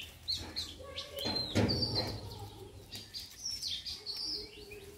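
Small birds chirping, many short high calls scattered and overlapping.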